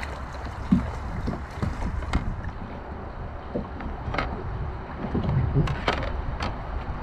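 Water sloshing and splashing around a plastic sit-on-top kayak as a person climbs aboard from shallow water, with several sharp knocks against the hull. Wind rumbles on the microphone underneath.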